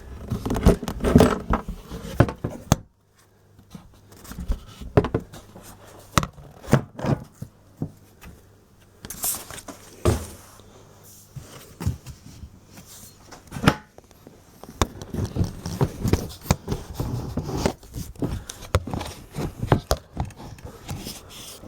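Irregular knocks, clicks and scrapes of a plastic motorcycle top box being worked onto its mounting plate until its tongue seats.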